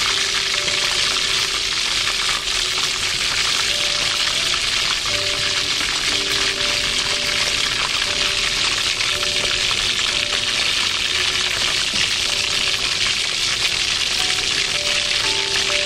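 Chicken drumsticks frying in hot oil in a wok: a steady, dense sizzle.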